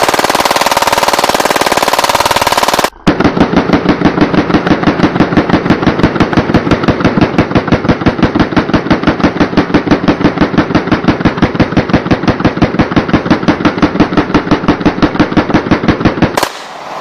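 Fully automatic 9mm Glock 17 pistol firing continuously from an oversized drum magazine. It starts with a very rapid, dense burst, and after a short break about three seconds in comes a long run of evenly spaced shots, about six a second, that stops abruptly near the end.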